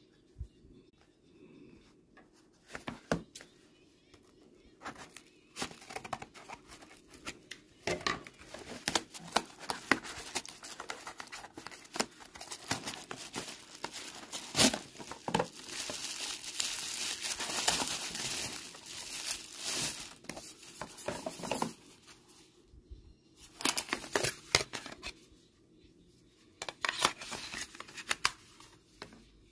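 A calculator's cardboard retail box and packaging being opened by hand: irregular rustling, crinkling and tearing with scattered clicks, densest in the middle, then a few short bursts of handling near the end as the plastic case is picked up.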